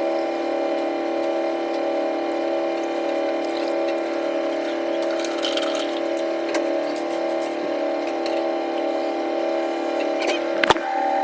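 Washing machine running late in its cycle, a steady hum, with one sharp knock near the end.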